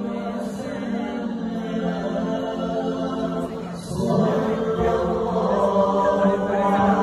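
A group of voices chanting in unison, holding long notes, growing louder about four seconds in.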